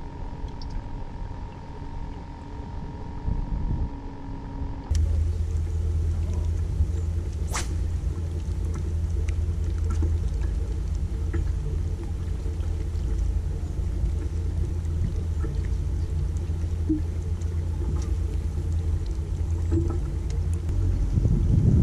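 Wind rumbling steadily on the microphone on an open fishing boat. For the first few seconds a steady high hum runs underneath; it stops at an abrupt change about five seconds in. One sharp click comes a couple of seconds after that.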